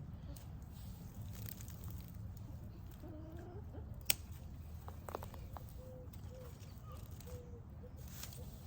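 Quiet outdoor ambience with a steady low rumble and a few faint, short, low-pitched bird calls, plus a single sharp click about four seconds in.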